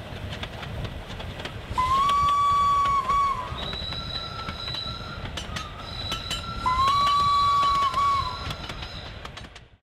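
Steam locomotive whistle blowing two blasts about five seconds apart, each lasting about a second and a half, over the rumble and clicking of the train running on the rails. The sound fades out near the end.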